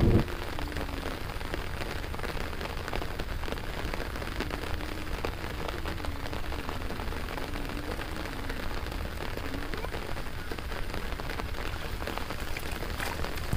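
Steady rain falling on the standing water of a flooded rice field: a dense patter of many small drops.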